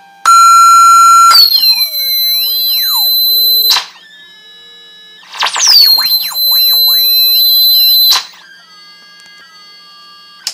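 Loudspeaker driven by a homemade 4046 phase-locked-loop and inverter-bridge circuit, giving out electronic tones whose pitches glide up and down as the frequency is adjusted. There are two loud stretches of a few seconds each that cut off suddenly, with quieter warbling tones between them and after them.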